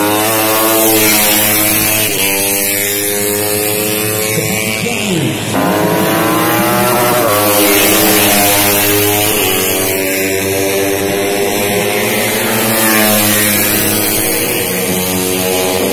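Racing motorcycle engines revving hard and climbing in pitch through repeated gear changes. About five seconds in, a bike passes close by with a sharp drop in pitch.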